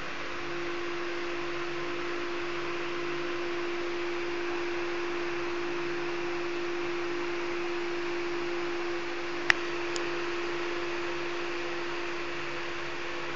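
Steady hum with one constant low tone over a hiss, the sound of a fan or appliance running in a room; two sharp clicks about half a second apart, two-thirds of the way through.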